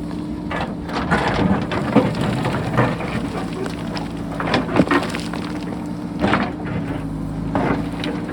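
JCB backhoe loader's diesel engine running steadily while its bucket digs into rocky ground, with repeated irregular cracks and clatter of breaking and tumbling rock.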